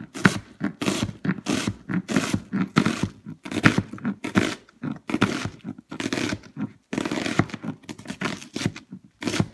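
Chef's knife dicing an onion on a plastic cutting board: a steady run of crisp chops, about three a second, each blade stroke crunching through the onion and knocking on the board.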